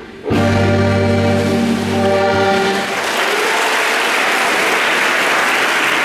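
Scottish dance band playing the held final chord of a jig for about two and a half seconds, after a brief pause. At about three seconds in the chord stops and the dancers applaud.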